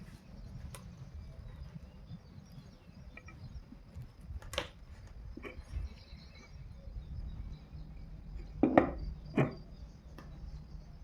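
Scattered sharp knocks and clicks of hard objects being handled, the two loudest close together about nine seconds in, over a low rumble.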